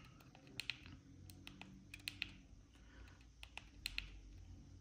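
Faint clicking of the small keys on an M5Stack Cardputer pocket computer, pressed about a dozen times at an uneven pace, some in quick pairs, while stepping back through its menus.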